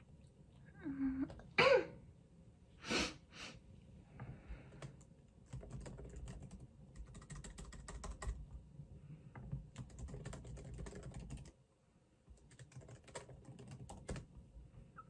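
A brief vocal sound about a second in, then a computer keyboard being typed on in quick bursts of clicks, with a short pause in the typing near the end.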